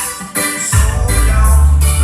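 Reggae-style music with keyboard over a steady drumbeat, played loud through a large festival sound system. The deep bass cuts out at the start and comes back about three-quarters of a second in.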